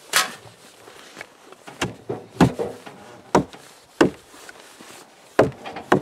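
Sledgehammer blows knocking on the wooden sled frame: about seven sharp, irregularly spaced knocks.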